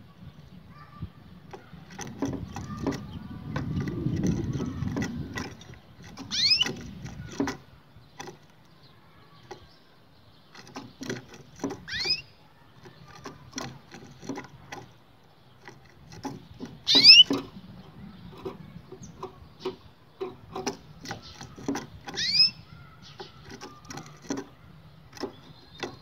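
A canary hopping about its cage, with quick taps and clicks of its feet on the perch and cage floor, and four short rising chirps spaced a few seconds apart. A low rumble comes through about three to five seconds in.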